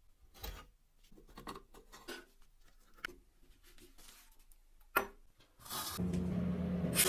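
Light clicks and knocks of objects being handled, with a sharp click about five seconds in; then, about six seconds in, a steady hissing, humming machine starts and keeps running.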